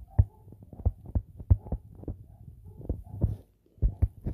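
Stylus writing on a tablet screen: a string of irregular dull taps and clicks, a few a second, with faint scratching between them as the pen strokes out letters.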